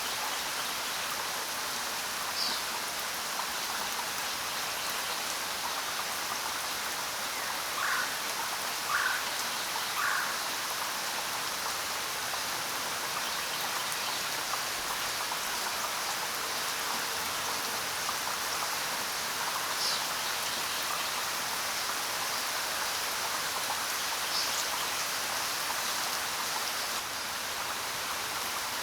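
Steady rain falling, an even hiss of drops. A few short bird calls sound over it: one early, three about a second apart a third of the way in, and a couple more later.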